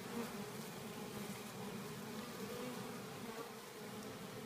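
Honey bees buzzing from a dense cluster on the ground, many wingbeats merging into a steady, slightly wavering hum.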